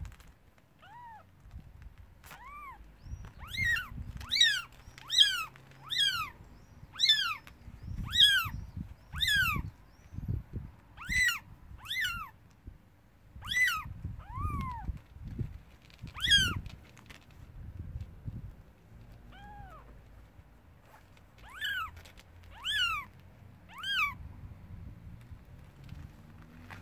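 Kittens about five to six days old mewing: short, high-pitched cries, each rising then falling in pitch, coming one after another about once a second, with a lull about two-thirds of the way through before a few more.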